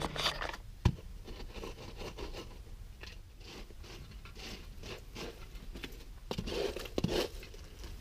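Stones being set down and shifted by hand on gravelly dirt: scattered knocks, scrapes and crunches, with a sharp knock about a second in and a cluster of louder knocks and scrapes near the end.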